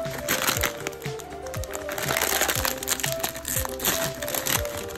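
A bag of Doritos chips crinkling as hands pull and tear its plastic open, densest in the first few seconds. Background music with a steady beat plays throughout.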